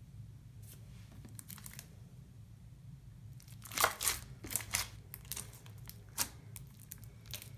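Slime being squished and pressed by hand, giving a run of short wet crackles and pops that starts about halfway through, over a low steady hum.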